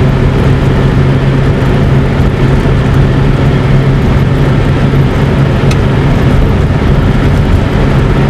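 A running engine's steady drone with a strong low hum under a continuous rushing noise, as heard from aboard a moving vehicle.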